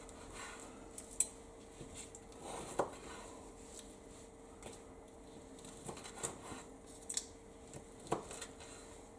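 Serving utensils clinking and scraping on plates: scattered light taps, a few sharper clinks, over a faint steady hum.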